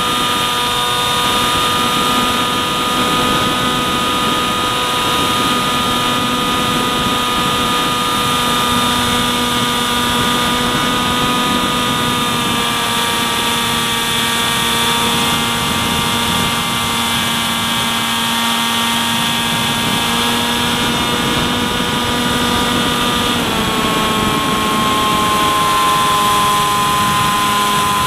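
Electric motor and propeller of a foam FPV plane whining steadily in flight, heard from the camera on board, with air rushing past. The pitch shifts a little about twelve seconds in and again near the end.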